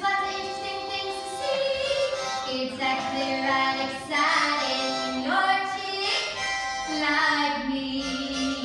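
Live stage music with a high voice singing held notes, broken by several quick upward swoops in pitch.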